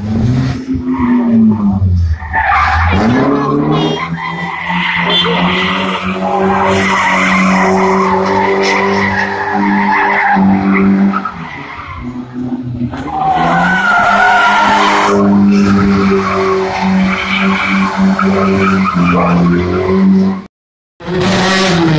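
Rally car drifting, its engine held at high revs while the tyres squeal and skid on tarmac. Just after 20 seconds the sound cuts out for a moment, and another car is then heard revving.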